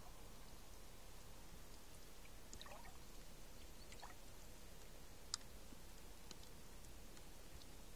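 Faint water trickling and dripping among seaweed-covered shore rocks as the tide floods in, with scattered small clicks and a couple of short gurgles. A single sharper click comes about five seconds in.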